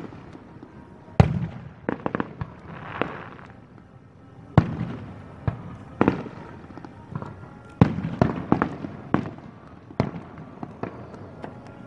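Aerial firework shells bursting in an irregular series of sharp bangs, some coming singly and some in quick clusters, each with a short echo. The loudest bang comes about a second in.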